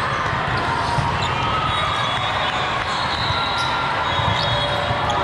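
Indoor volleyball games in full swing: a steady hubbub of many voices from players and spectators, with scattered thuds of volleyballs being hit and bouncing and short high squeaks of shoes on the sport-court floor.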